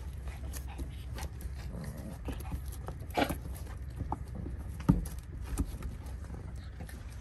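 Chow chow puppies scuffling in rough play on a wooden deck: their claws and paws click and scrabble on the boards in quick, uneven taps, with a single loud thump about five seconds in.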